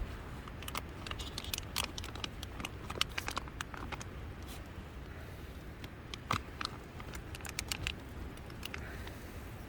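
Small clicks and taps of cooking gear being handled while fish cakes go into a camp pot, in two clusters, over a steady low rumble.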